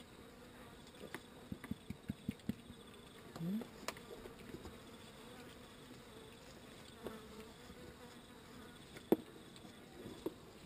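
Insects buzzing in a faint steady hum, with scattered soft clicks and rustles of straw as piglets move about, and a short rising piglet grunt about three and a half seconds in.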